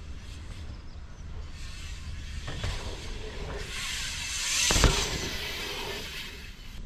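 Dirt jump bike riding past on loose sandy dirt, its tyre noise building to a loud thud about five seconds in, with a smaller knock earlier, over wind rumbling on the microphone.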